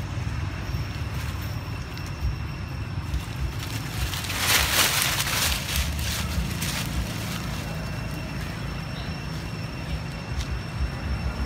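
Wind buffeting the microphone in a steady low rumble. About four and a half seconds in comes a louder rustling hiss lasting a second or two, with a few scattered ticks.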